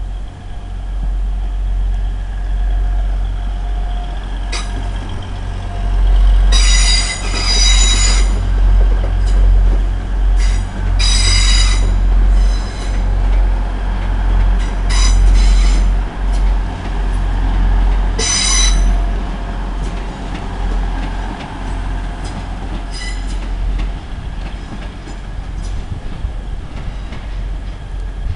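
First Hull Trains Class 180 diesel multiple unit pulling out and passing close by, its engines giving a steady low rumble. Its wheels give repeated high-pitched squeals, each lasting up to a second or two, as it runs out over the station's curves and points.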